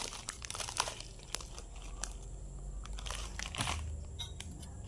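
Eating sounds while eating noodle soup: irregular crunching and crackling with chewing.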